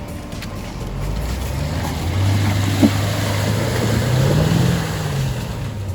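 Vehicle engine running at low revs, its pitch rising and falling briefly about four to five seconds in, with a sharp click near three seconds in.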